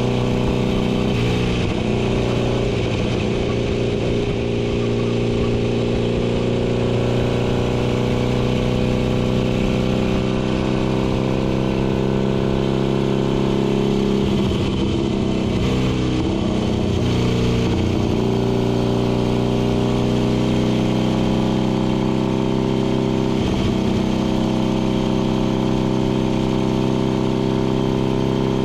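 Racing motorcycle engine running hard at steady high revs, heard from on board the bike, with a rush of wind noise. Its pitch wavers and recovers briefly a few times, about a second in, around the middle and again later, as the rider works the throttle through the corners.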